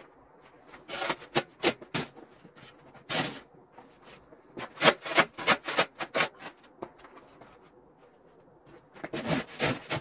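Snow shovel blade scraping and scooping along packed snow and ice, in short strokes that come in bunches with pauses between, the quickest run in the middle.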